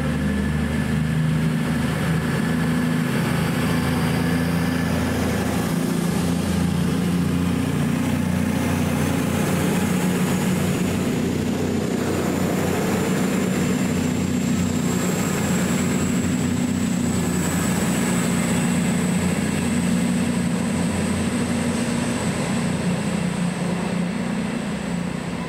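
Diesel train engine running steadily at a low, even note, with a faint high whine that slowly rises in pitch over the second half.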